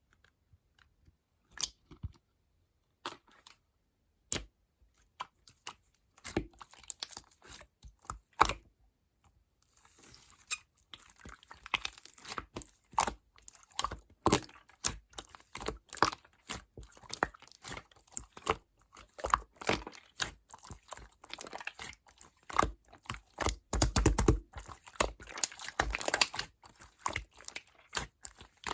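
Slime being squished and poked by hand, making sticky clicks and crackling pops. The pops come one at a time at first, then turn into a dense run of crackling from about ten seconds in.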